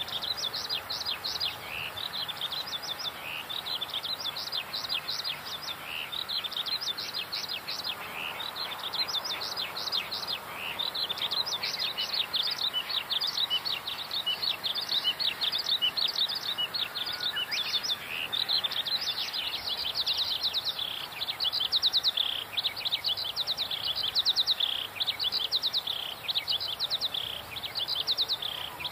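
A continuous chorus of birds chirping in the trees: many quick, high, falling notes overlapping without a break.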